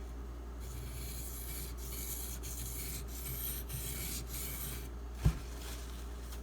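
Spyderco Delica's SG2 steel blade scraped back and forth across a Shapton Pro 1000-grit whetstone in a run of about six strokes with short breaks between. About five seconds in there is a single sharp knock.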